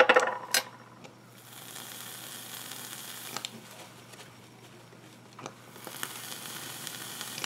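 Coils of a 454 Big Block rebuildable dripping atomizer sizzling as the mod fires them, burning off freshly dripped e-liquid. There are two stretches of hiss of about two seconds each, with a few clicks near the start.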